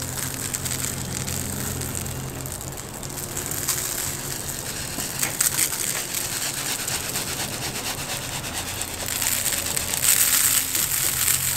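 Salt poured from a box onto the raw skin of a whole pig, the grains falling loudest in the last two or three seconds, over a steady background hiss and low hum.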